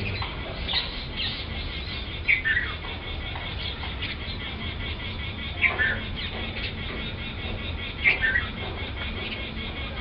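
House sparrows chirping: a steady run of quick high chirps, with a few louder calls that slide downward in pitch.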